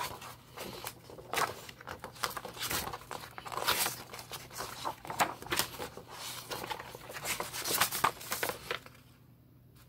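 Crinkling and rustling of plastic and paper in irregular bursts as a record album and its sleeve are handled, stopping near the end.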